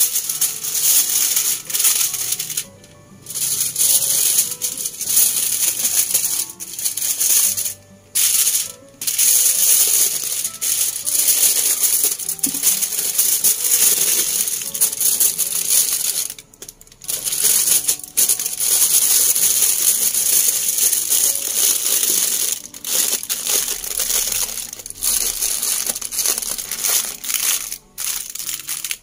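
Aluminium foil crinkling and crackling as it is folded and rolled tightly around a fish parcel, almost continuous with a few brief pauses.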